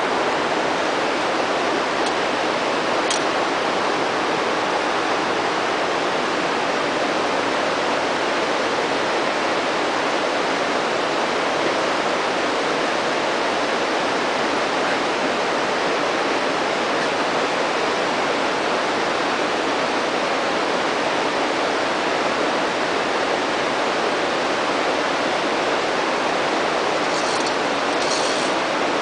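Steady, even rushing noise, with a few faint short clicks about three seconds in and again near the end.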